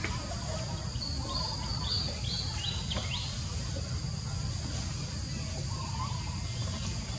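Outdoor insect drone, steady and high, over a low steady rumble, with a run of about five short high chirps from a bird between about one and three seconds in.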